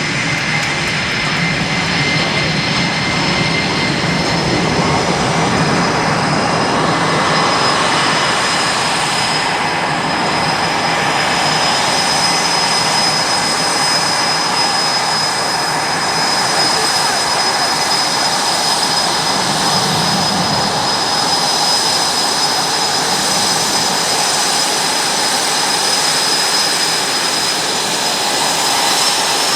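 Boeing F/A-18 Super Hornet jet engines running steadily: a loud, even turbine noise with a high, steady whine over it.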